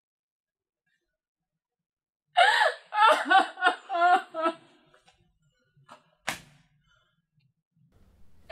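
A man crying, with short sobbing vocal bursts for about two seconds, starting about two seconds in. Near the end a single sharp knock.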